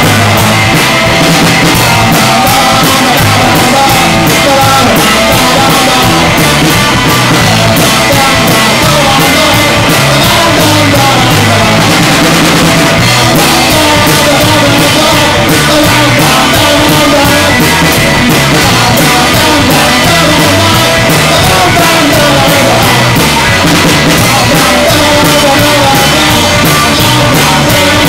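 Live rock band playing loud: electric guitars and drum kit with a steady beat, and a male singer's vocals.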